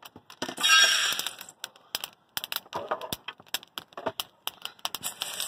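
Freshly roasted coffee beans poured from a hot-air popcorn popper into a stainless steel bowl: a rush of beans hitting the metal about half a second in, then scattered sharp clicks of beans in the bowl.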